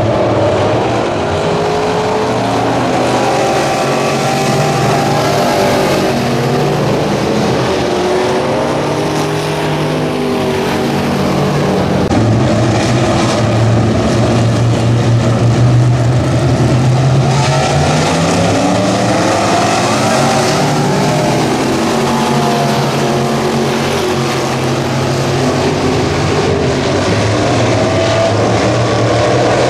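Several dirt-track street stock race cars' V8 engines running hard on the oval, their engine notes rising and falling over and over as the cars lap.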